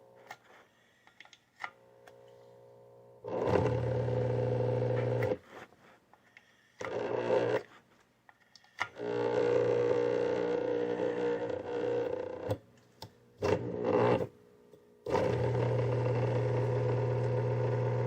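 Faulty pump motor switched on and off several times, each run a loud steady hum that starts and cuts off abruptly, lasting from under a second to about four seconds.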